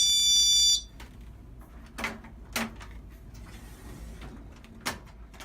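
Security display shelf's built-in alarm sounding a loud, high-pitched electronic tone that cuts off just under a second in, followed by three sharp clicks of the unit being handled.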